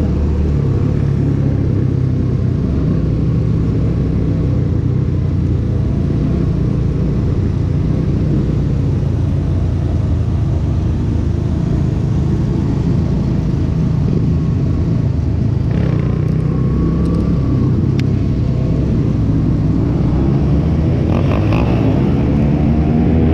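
Benelli 302R's parallel-twin engine running steadily while riding, under wind noise, with the revs rising and falling near the end.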